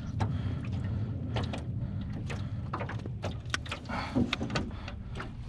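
Handling noise as a fish is unhooked with plastic fish grips: a string of short clicks and knocks, over a steady low rumble.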